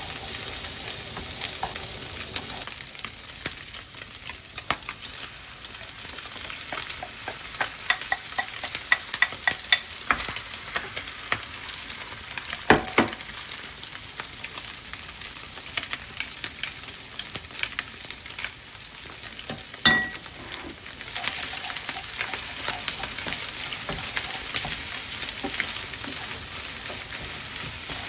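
Egg and Spam fried rice sizzling in a frying pan while it is stir-fried, the spatula scraping and clicking against the pan. Two louder knocks of the spatula or pan come about halfway through and again about two-thirds of the way in.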